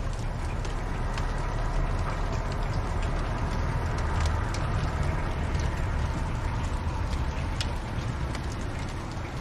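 Wood fire burning in a fireplace: scattered sharp crackles and pops over a steady low rumble.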